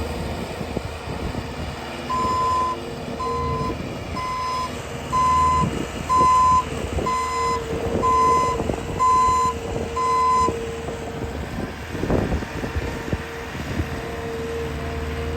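A vehicle's reversing alarm beeping about once a second, nine beeps in all, over the steady running of its engine.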